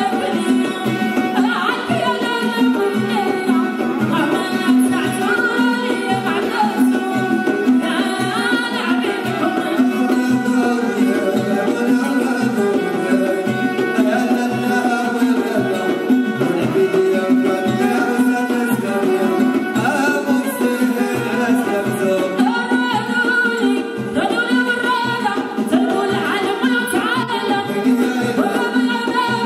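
A woman singing Moroccan aita hasbaouia live with a traditional ensemble of oud, violin and percussion, the drums keeping a steady beat under her voice.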